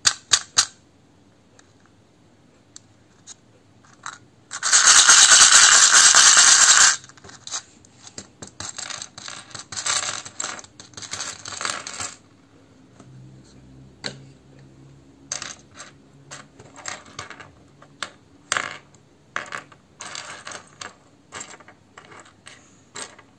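Small plastic Lego minifigure parts rattling hard in a plastic cup for about two seconds, then clattering out onto a tabletop. After that come scattered light clicks as single pieces are picked up and set down.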